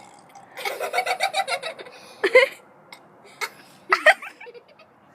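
Children laughing: a fast run of giggles about half a second in, then a few shorter bursts of laughter.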